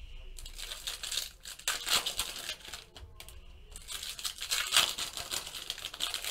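Foil trading-card pack wrappers crinkling and tearing as packs are opened by hand, in irregular bursts with short pauses.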